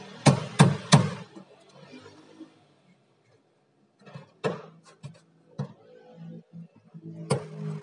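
Sharp knocks and handling noise as car wiring is tucked in beside a tail lamp. There are three quick knocks at the start, a quiet spell, then a few more scattered knocks, over a low steady hum.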